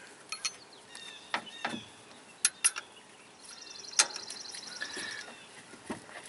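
Scattered sharp clicks and knocks of the serpentine belt being worked back over the engine's pulleys by hand, the loudest about four seconds in. Just before it, a bird trills briefly in the background.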